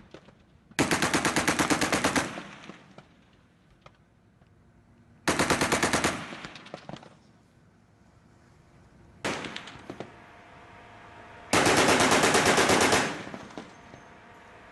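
Mk 38 25mm machine gun system, an M242 Bushmaster chain gun, firing on automatic in bursts of rapid shots. There are three bursts of about one to one and a half seconds each, plus a very short burst a little past halfway, and each dies away in a ringing tail.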